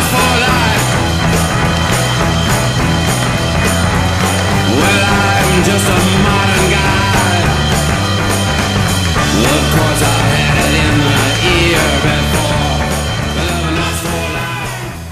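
Background music with a steady beat, fading out near the end.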